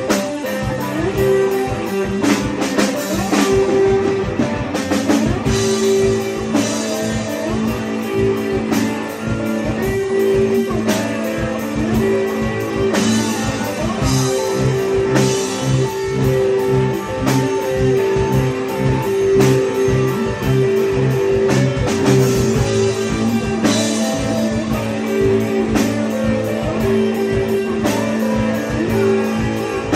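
Rock music played on electric guitar and drum kit, with sustained guitar notes over a steady beat.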